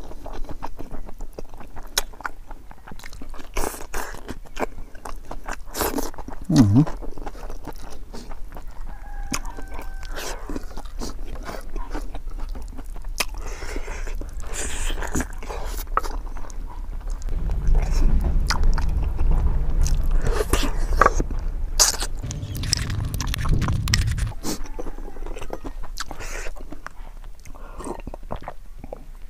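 Close-miked chewing and biting of cooked pig's feet and rice, with many short wet clicks and smacks. A low rumble joins in for several seconds in the second half.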